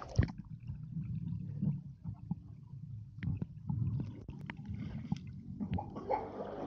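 Muffled sound of a swimming pool heard underwater: a low rumble of moving water with scattered clicks and bubbling as swimmers dive and move. A sharp splash-like hit comes just after the start as the microphone goes under the surface.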